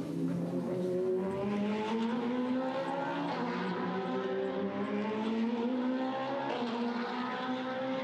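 BMW M4 DTM race car's 2.0-litre turbocharged four-cylinder engine pulling hard, its pitch climbing steadily through the gears with a short break at a shift about three and a half seconds in.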